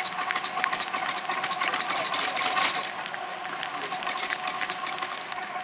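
7¼-inch gauge miniature steam locomotive running along the track: a fast, busy ticking rhythm of exhaust beats and wheels on rail joints, over a steady high tone, easing slightly about three seconds in.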